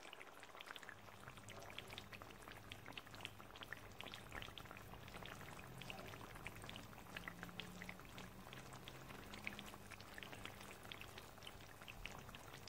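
Faint, irregular crackling and popping, like chicken karahi gravy sizzling and bubbling in its pan, over a low steady hum.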